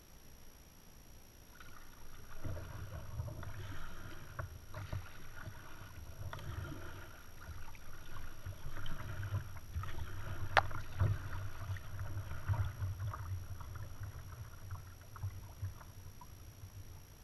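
Kayak paddling: paddle strokes and water splashing against the hull. It starts about two seconds in and eases off near the end, with one sharp click about ten seconds in.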